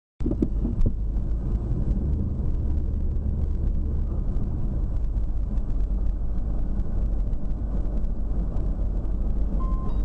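Car driving slowly, its engine and road noise a steady low rumble heard from the dashboard inside the cabin, with a few clicks in the first second.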